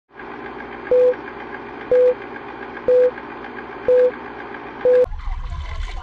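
Old-film countdown leader sound effect: five short beeps, one each second, over a steady crackling projector-like hiss. It cuts off suddenly after the fifth beep, giving way to a low rumble and water sounds.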